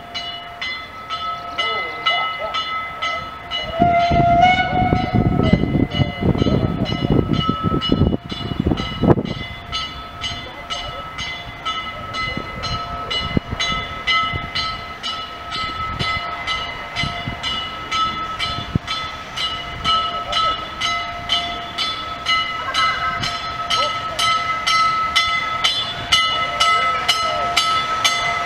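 Small steam tank locomotive approaching with a train of coaches, its exhaust beats coming steadily faster as it nears. About four seconds in there is a short whistle together with a loud rumble lasting several seconds, and a steady high-pitched ringing tone runs underneath.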